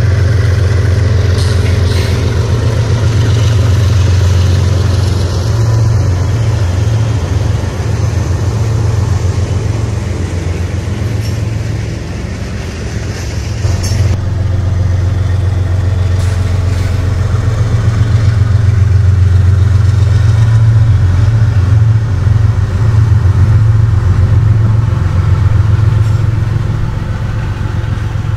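Diesel freight train passing close by: the locomotive and rolling freight cars make a loud, steady low rumble. The sound changes abruptly about halfway through, where a second passing train takes over.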